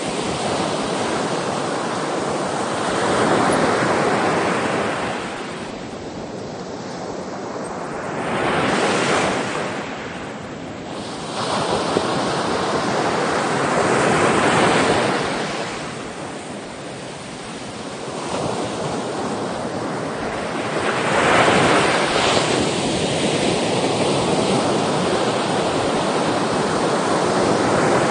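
Ocean waves breaking and washing on the shore, the surf swelling and ebbing every few seconds, with some wind noise.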